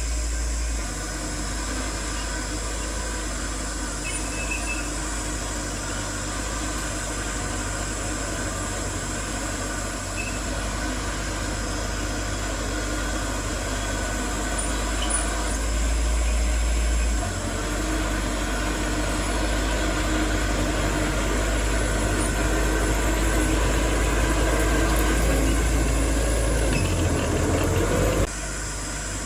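Heavy diesel engine of earthmoving equipment running steadily under load, its sound mostly low. It grows louder through the second half, then cuts off abruptly about a second before the end.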